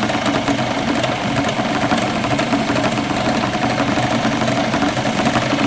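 Motor of a homemade wood lathe running steadily, spinning a small turned bowl while wax polish is applied to it; a constant hum with a busy, slightly rattling texture.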